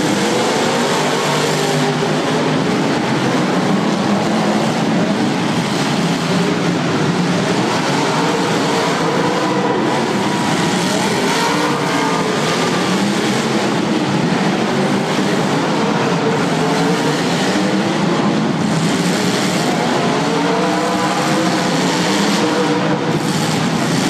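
Several demolition derby cars' engines revving hard at once, a loud unbroken din with pitches constantly rising and falling.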